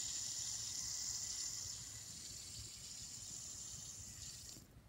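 Fidget spinner spinning between the fingers, its bearing giving a steady high-pitched whir that is not silent. The whir weakens and stops near the end.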